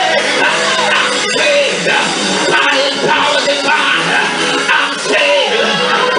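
Loud live music with singing voices and shouts over it.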